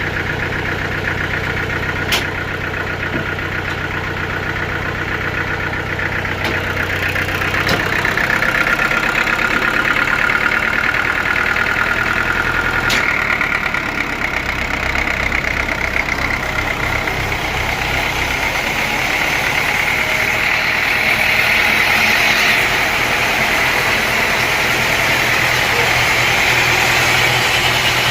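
Sawmill engine running steadily, its sound shifting a couple of times, with a higher whine coming in about halfway through.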